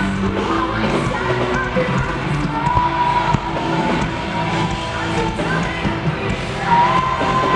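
Heavy metal band playing live through a venue PA, a woman singing over guitar and drums, recorded from within the crowd.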